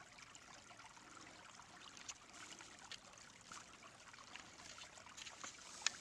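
Faint steady trickle of a creek running over rocks, with scattered small clicks and one sharper click near the end.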